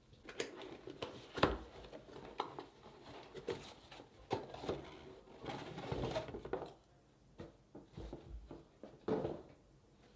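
Handling noises while unpacking: irregular clicks, light knocks and rustling of packaging, with louder knocks about a second and a half in, around six seconds and near the end.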